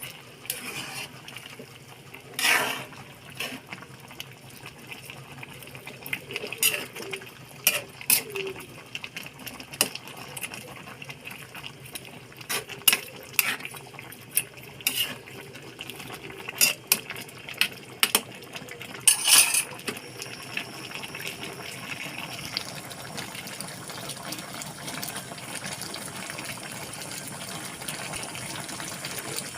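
Pot of chicken curry in coconut milk simmering and bubbling, with a spoon repeatedly clinking and scraping against the pot as it is stirred to keep the coconut milk from curdling. The clinks stop about twenty seconds in, leaving a steady simmer.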